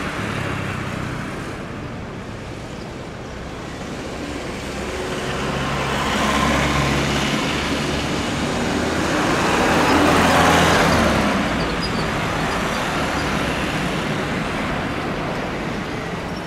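Continuous rumble of road traffic mixed with the engines of an Airbus A321 airliner on landing approach, swelling to its loudest about ten seconds in and easing off after.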